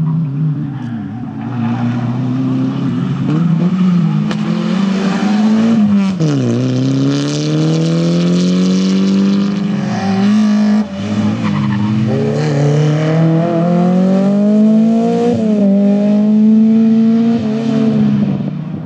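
Rally car engine under hard acceleration as it drives past on the stage, its pitch climbing and dropping back sharply several times as it shifts up.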